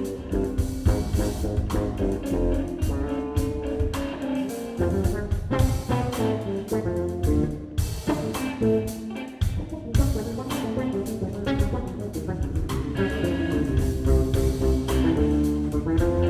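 Live instrumental groove-jazz trio playing: electric guitar lead over electric bass and a drum kit.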